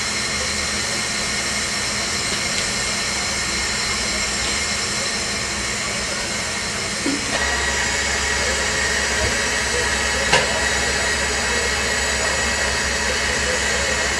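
Steam hissing steadily from a standing Bavarian Pt 2/3 steam tank locomotive. The sound changes abruptly about seven seconds in, where a deeper steady hum joins the hiss. A single short knock comes near ten seconds.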